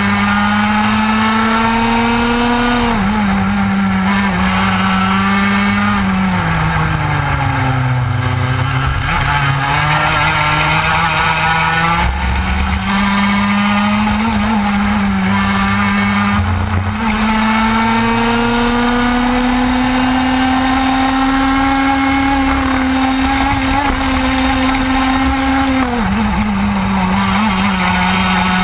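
Onboard sound of a TKM two-stroke kart engine at racing speed, its pitch climbing steadily along the straights and dropping sharply as the driver lifts for corners, about three times. It reaches its lowest revs about eight seconds in and then winds back up.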